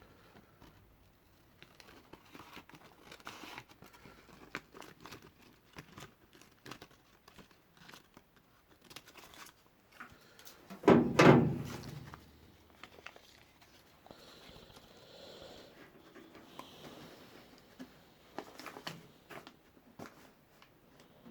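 Stiff brown packing paper rustling and crinkling as it is handled and shaped into a template, with scattered light taps and one much louder thump about eleven seconds in.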